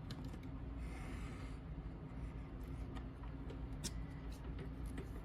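Faint handling noises of glued board pieces being pressed together at a corner: a few light taps and clicks and a brief soft rub about a second in, over a steady low hum.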